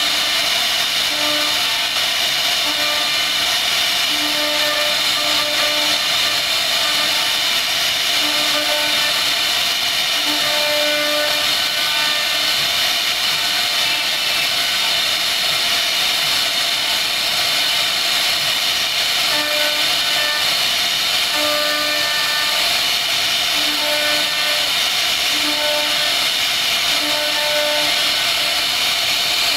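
CNC router spindle running at high speed while its cutter carves a relief pattern into a wooden board: a steady high whine and hiss, with a lower hum that comes and goes in short stretches.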